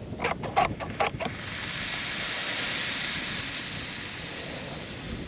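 A few quick metal clicks as the plunger of a cordless Instantvap compact oxalic acid vaporizer is pushed home. Then comes a steady hiss as the acid flashes to vapour and is blown into the hive, easing off over the last couple of seconds.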